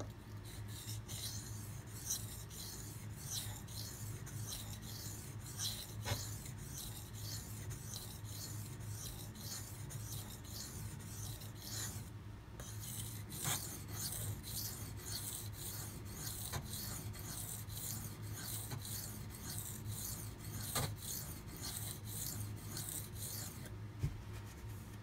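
A knife edge stroked back and forth on a water stone, a rhythmic scraping at about two strokes a second, with a short pause about halfway and stopping shortly before the end. The strokes are working the last unfinished spots at the tip and in the belly to raise a burr along the edge.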